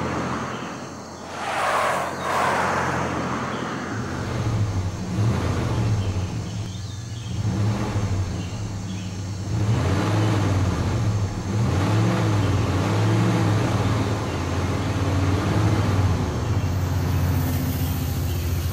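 Cartoon vehicle engine sound effect, running with its pitch wavering up and down as the car or truck drives along. A short rushing whoosh comes about two seconds in.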